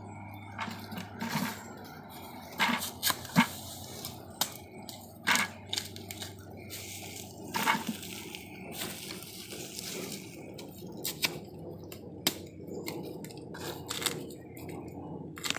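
A knife cutting into fresh bamboo shoots as they are peeled, with irregular crisp cracks and crunches of the husk sheaths being split and pulled away.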